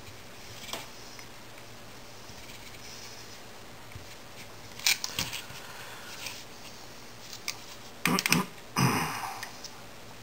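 Scattered small metallic clicks of pliers working a spacebar wire clamped in an aluminium jig, with a louder clatter and scrape of handling about eight seconds in.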